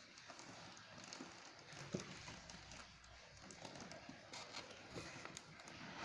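Faint rustling and scattered light knocks of a cardboard box and plastic-wrapped appliance parts being handled, with one sharper knock about two seconds in.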